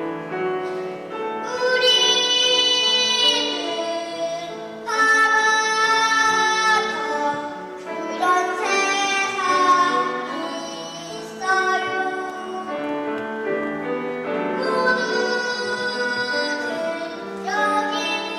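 Children's choir singing with instrumental accompaniment, in sung phrases that swell and ease back every few seconds.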